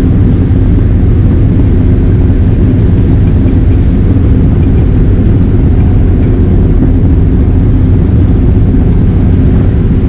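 New Holland TR86 combine running steadily under load while harvesting corn, a continuous engine and threshing drone heard from inside the cab.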